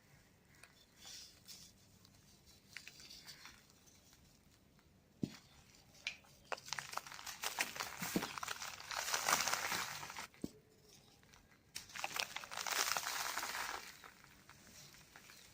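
Dry cement balls and cubes crumbling: a grainy, crunchy crackle, faint and scattered at first, then two longer, louder stretches in the second half, with a few sharp clicks between them.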